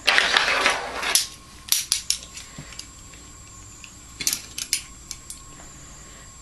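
Plastic spoon scraping and clicking against a plastic compartment spice box: a rough scrape lasting about a second at the start, then scattered light clicks and taps.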